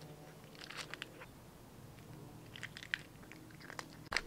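A cat eating wet food from a foil tray: faint chewing and smacking clicks in small clusters, with a louder cluster near the end.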